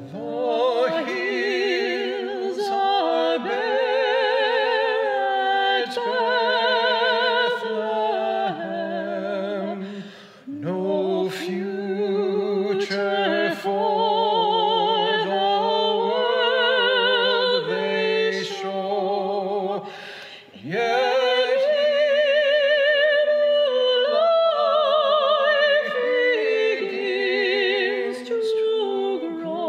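Congregational hymn sung slowly with strong vibrato, in long phrases that break briefly about ten and twenty seconds in.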